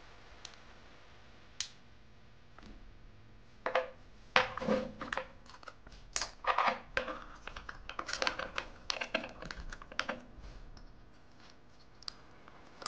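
Handling noise of small hard parts: a corked glass bottle and aluminium soda-can burner tops being set in place on a miniature stove with a sheet-metal top. Irregular clicks, taps and light clatter, busiest in the middle and thinning out near the end.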